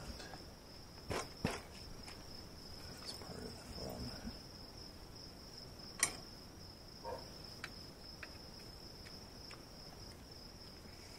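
A few light clicks and knocks of a motorcycle exhaust pipe being handled and worked up into place, over a steady high-pitched whine. The loudest knock comes about six seconds in.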